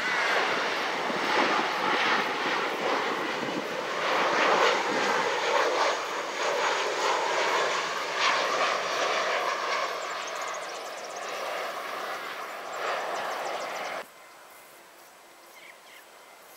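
Boeing 737 airliner's twin CFM56 turbofan engines running on final approach to land, a dense jet roar with a steady whine, loudest about four to five seconds in and easing a little after. It cuts off abruptly about fourteen seconds in, leaving only faint outdoor background.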